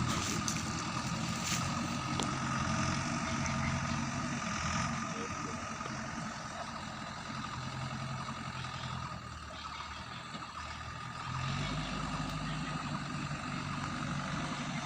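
Diesel engine of a JCB backhoe loader running steadily. It fades somewhat past the middle and comes back louder about eleven seconds in.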